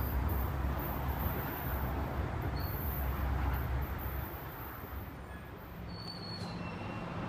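Low, uneven rumble and wind noise on an open rail platform, easing off about four seconds in. About six seconds in, a steady low hum begins from a New Jersey Transit multilevel train standing at the platform.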